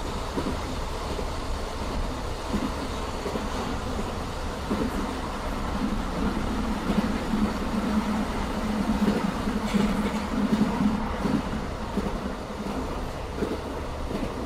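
Running noise inside a BLS passenger train car, the wheels clattering over the closely spaced joints of a very short-rail stretch of track. A low rumbling drone under the clatter swells in the middle and eases off again.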